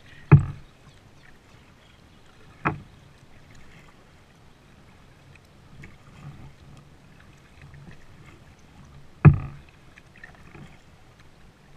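Plastic kayak being paddled along calm water: three sharp, hollow knocks on the hull, near the start, about two and a half seconds in and about nine seconds in, with soft paddle-in-water sounds between.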